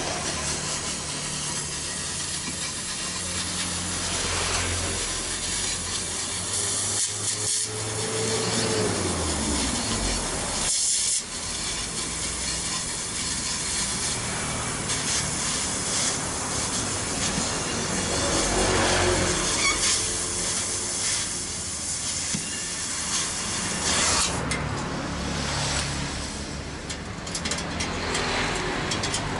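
Gas cutting torch hissing steadily as its flame heats the steel shell of a motorcycle muffler, over a low shifting drone. The sound turns rougher and crackly in the last few seconds.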